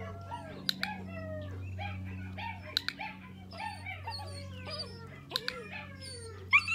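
Young puppies whining and yelping, many short high cries overlapping one another, over a steady low hum, with a few sharp clicks.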